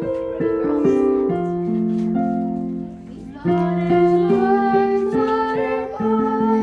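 Music: the instrumental introduction to a children's song about butterflies, a run of plucked notes with a melody coming in about three and a half seconds in.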